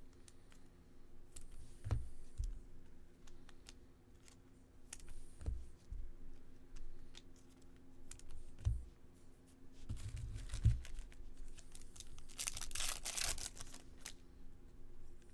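Trading cards being handled and shuffled, with scattered light clicks and soft knocks. About twelve seconds in, a foil card-pack wrapper is torn and crinkled for a second or two.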